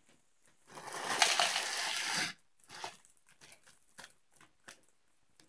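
Plastic instant-ramen packet crinkling loudly for about a second and a half as the dry noodle block inside is crushed. Several short crackles follow as the crumbled noodles are shaken out into a plastic bowl.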